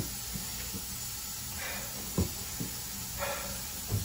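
A man breathing out hard twice, about two and three seconds in, in pain from the burn of a Carolina Reaper chip, with a few soft low thumps between. A steady hiss of background noise runs underneath.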